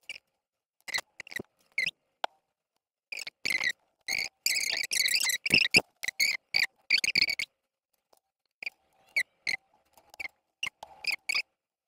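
Laser-cut wooden case panels being handled and fitted together by hand on a desk: a string of short, irregular scraping and squeaking rubs, with gaps between them.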